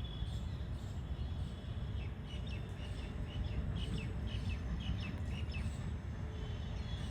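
A bird gives a run of short, high chirps, about a dozen notes, from about two seconds in to near six seconds. A steady low rumble runs underneath.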